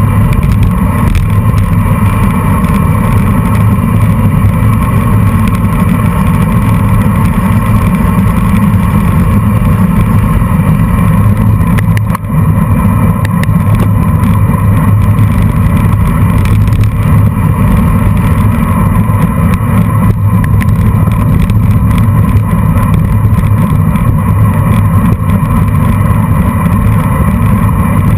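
Wind rushing over a bicycle-mounted camera's microphone while riding at race speed, a loud steady low rumble mixed with tyre and road noise, dipping briefly about twelve seconds in.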